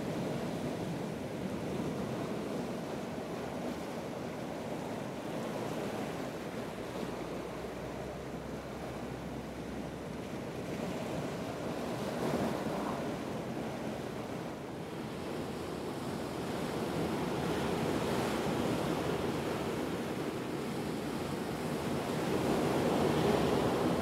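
Atlantic surf breaking over and washing across rocky ledges: a continuous rushing wash that swells and eases with each wave, louder a little before halfway, again past two-thirds of the way, and loudest near the end.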